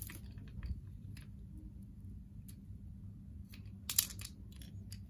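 Small clicks and scrapes of a tool prying the CR1620 coin cell battery out of a Honda Brio remote key fob's plastic case, with one sharp click about four seconds in.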